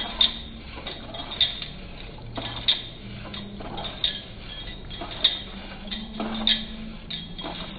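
Wire whisk stirring a thin milk mixture in a nonstick pan, its wires clinking against the pan about once every second and a quarter, with soft swishing between the clinks.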